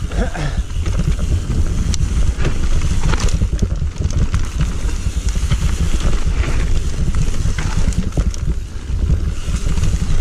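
Mountain bike riding fast downhill on a dirt singletrack: a steady wind rumble on the microphone, with tyre noise on the dirt and frequent clicks and rattles of the bike over bumps.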